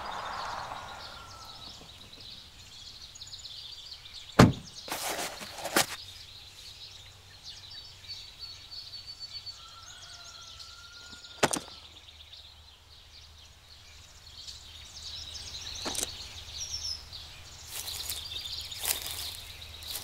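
A few sharp knocks and thuds of camping gear being unloaded from a Jeep's rear cargo area, the loudest about four seconds in, over a quiet background with faint bird chirps.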